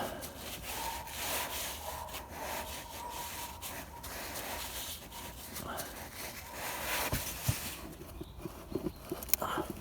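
Irregular rubbing and scrubbing as spilled differential oil is wiped off with brake cleaner after the drain plug is refitted, with a few short clicks and knocks near the end.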